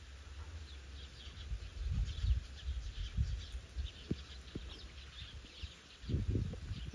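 Small birds chirping faintly over and over, with low rumbling thumps on the microphone, loudest about two seconds in and again near the end.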